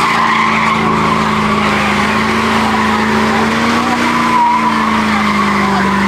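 Mercedes-Benz S-Class doing donuts, its engine held at steady high revs while the spinning rear tyres squeal on the asphalt.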